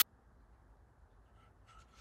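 Very quiet room tone with a faint low hum, and a few faint light knocks near the end as the grooved wooden strips are handled.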